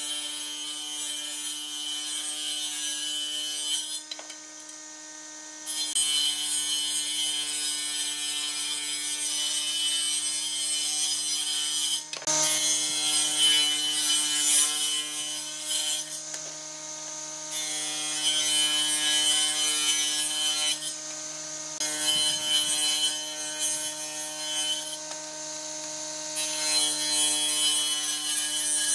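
Table saw ripping softwood boards along the fence. The blade's steady motor hum runs throughout, and the hiss of the cut comes in about six passes with short pauses between them where only the hum is heard. A sharp knock comes about twelve seconds in.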